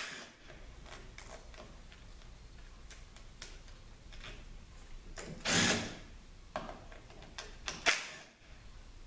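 Hand tools loosening the valve-body bolts on a Nissan RE4R01A automatic transmission: scattered metallic clicks, a louder noisy stretch of under a second about halfway through, and a sharp knock near the end.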